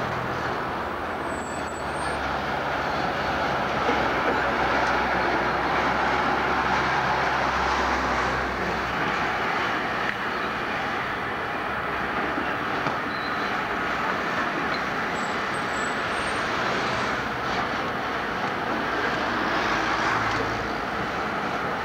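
Steady city street traffic with electric trams running on street track, a low engine hum among it and a few faint high squeaks; a tram passes close by near the end.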